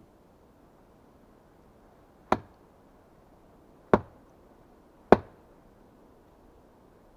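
Axe chopping into wood: three sharp strikes, about two, four and five seconds in, each dying away quickly.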